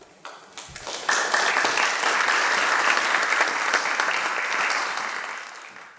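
Audience applauding: a few scattered claps, then full applause from about a second in, fading away near the end.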